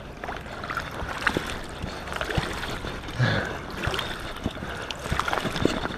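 Water sloshing and splashing around a large carp held in shallow water as it is released, with small knocks and rustles close by and one louder splash about three seconds in.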